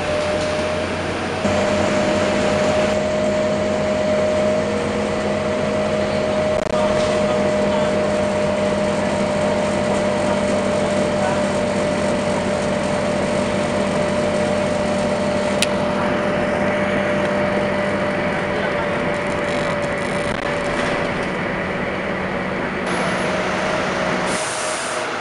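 Steady cabin noise inside a moving Scania K230UB single-deck bus: an even drone with a steady hum from its Scania DC9 diesel engine, driveline and air-conditioning. Near the end it gives way to a different, hissier outdoor sound.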